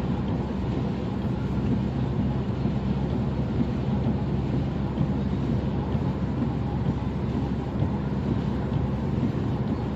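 Steady road noise and engine drone heard from inside a car cruising on a motorway, an even rumble with a low hum and no changes.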